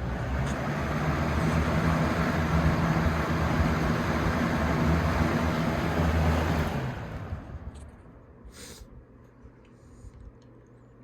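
Vintage Galaxy 3714 box fan running on low: steady air rush over its motor's hum, dropping away about seven seconds in to a faint hum. The motor could stand to be oiled.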